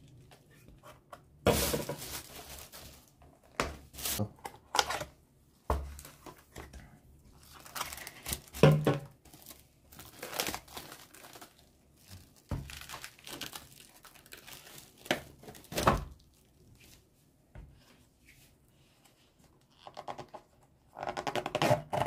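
Plastic cling film crinkling and tearing as it is peeled off takeaway food containers, in irregular rustling bursts with a quieter stretch near the end, and the plastic containers and lids being handled.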